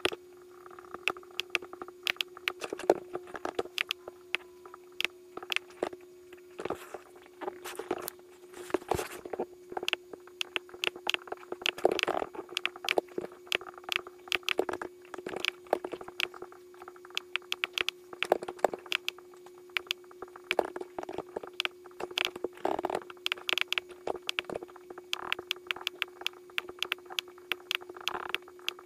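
Computer mouse clicking rapidly and irregularly over a steady electrical hum.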